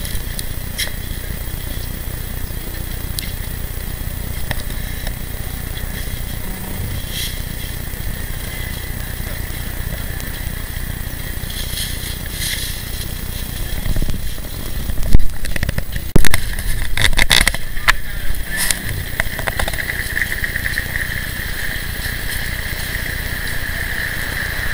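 Steady outdoor background rumble on a helmet camera's microphone, with a cluster of loud, sharp knocks about fifteen to nineteen seconds in.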